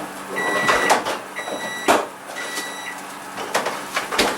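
A kitchen appliance's electronic beeper sounding high, evenly spaced beeps, about one a second, which stop about three seconds in. A few sharp knocks of kitchen clatter fall among them.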